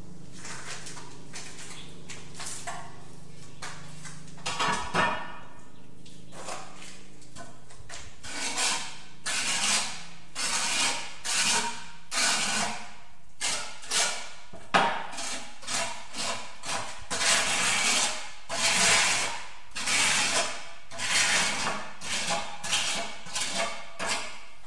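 Repeated scraping strokes of a hand tool working over mortar and tile: a couple of scrapes about five seconds in, then a steady run of one or two short strokes a second.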